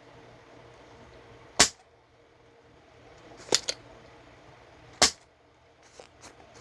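Sharp, snapping clicks from hand tools at the bench while the old solder is cleaned off the USB port pads: a single click, a quick pair, another single and a few faint ticks, over a steady low electrical hum.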